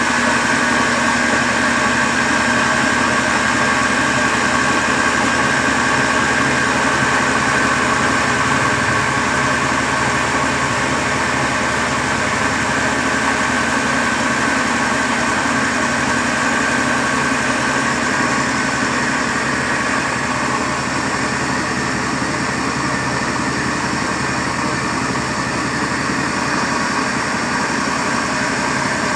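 Electric flour mill (atta chakki) running steadily while grinding grain into flour: a constant mechanical drone with a steady high whine.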